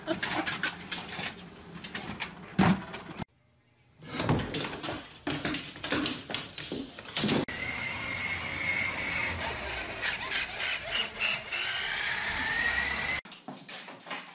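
Irregular taps and knocks from a dog on a moving treadmill, then a toy remote-control car's small electric motor whines steadily as it drives, the whine rising in pitch near the end before cutting off.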